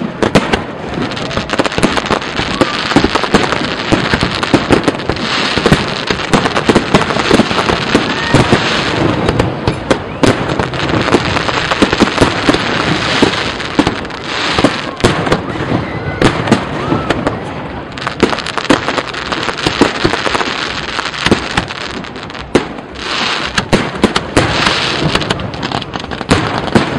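Aerial fireworks show: shells bursting in a rapid, unbroken barrage of bangs and crackles.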